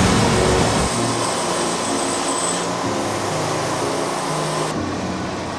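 Band sawmill cutting through an Eastern red cedar log: a steady, loud mechanical whine with a hiss. Near the end the high hiss drops away suddenly while the machine keeps running.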